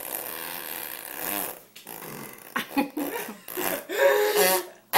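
A young child making a long fake fart noise, lasting about a second and a half, followed by bursts of laughter.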